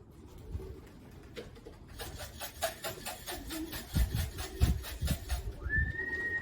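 Racing pigeons cooing in the loft, with a quick run of scratchy rustles and a few low thumps in the middle. A steady high beep lasting about a second comes near the end.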